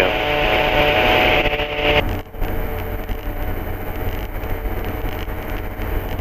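Engine and propeller of an MD3 Rider ultralight aircraft running steadily in flight, heard inside the cockpit. For the first two seconds a louder hiss with steady tones lies over it, then cuts off suddenly.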